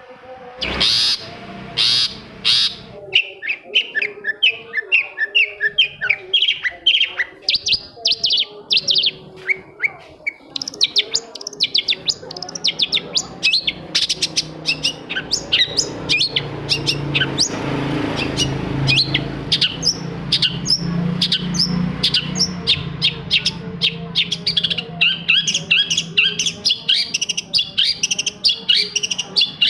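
Long-tailed shrike (cendet) singing a fast, chattering song of short, sharp chirps repeated several times a second, with a low hum in the background through the middle.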